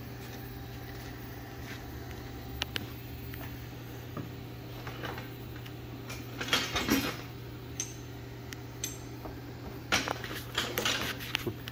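Metal clinking and clattering in a few short bursts, the loudest about six to seven seconds in and again about ten to eleven seconds in, with single clicks between, over a steady low hum.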